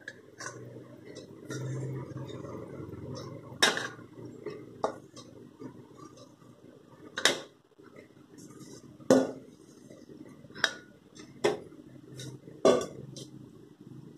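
Stainless-steel bowl and steel mixer jar clinking and knocking as crumbly cooked ragi is scooped by hand from the bowl into the jar. There are about seven sharp clinks, spaced irregularly a second or two apart.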